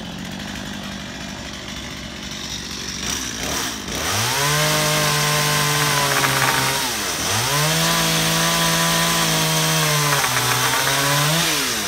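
Two-stroke chainsaw running steadily at first, then opened up to full throttle about four seconds in, cutting into a wooden fence post to make a notch for a brace rail. The engine note drops briefly twice, at about seven seconds and near the end, as the throttle is eased and opened again.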